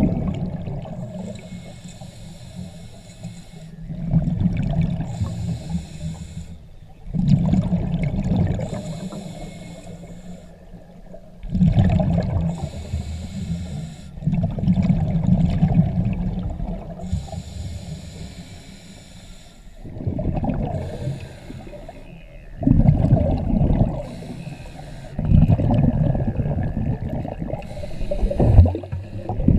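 A scuba diver breathing through a regulator underwater. Loud rushes of exhaled bubbles come every few seconds, and a thin hiss from the regulator sounds on each inhale between them.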